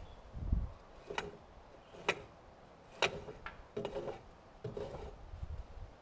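Sharp metallic clinks of hand work at the steel track of a Norwood LM29 band sawmill: three about a second apart, then a few lighter ones. A low thump comes just after the start.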